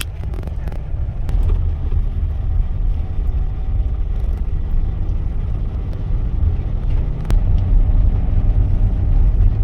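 Steady low rumble of a moving vehicle, with a faint engine hum rising in the last couple of seconds.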